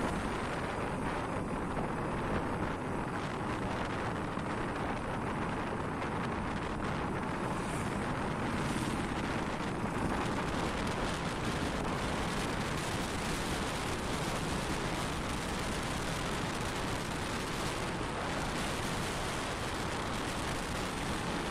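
Steady wind rush over the microphone and road noise from a moving motorcycle, with no clear engine note. The hiss grows stronger about halfway through.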